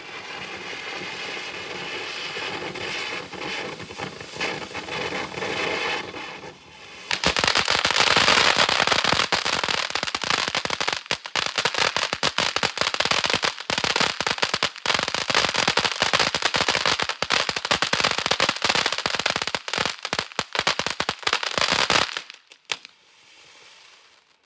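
Large snow cone ground fountain firework burning: a steady hissing spray, which about seven seconds in turns into loud, dense crackling that cuts off suddenly near the end.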